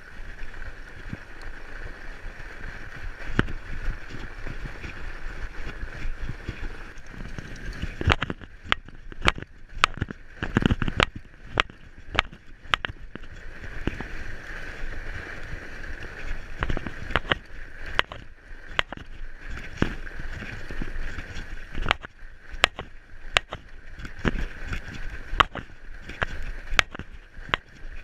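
Fatbike riding on a packed snow trail: fat tyres rolling with a steady hiss, and from about a third of the way in, frequent sharp clicks and rattles as the bike jolts over the bumpy snow.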